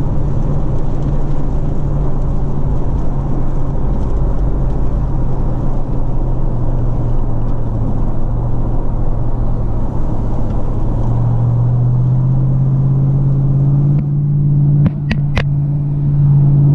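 Road and engine noise heard from inside a vehicle cruising at highway speed: a steady low drone over a deeper rumble, getting a little stronger about two-thirds of the way in. A few sharp clicks sound near the end.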